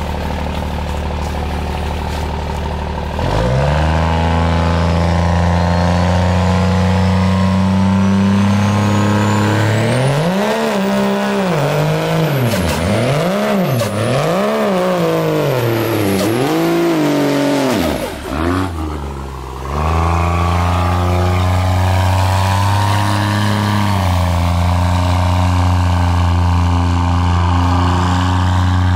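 2005 Dodge Ram's Cummins diesel engine idling, then picking up to a steady higher note as the truck takes up the load of a tree it is dragging. A high whistle climbs in pitch, and the engine speed then rises and falls several times. It drops off briefly and settles back into a steady pull.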